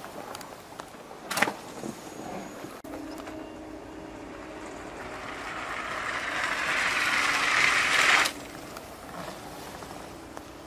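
Ski jumper's skis running down the inrun track: a hiss that grows louder for several seconds and cuts off suddenly about eight seconds in. There is a short knock about a second and a half in.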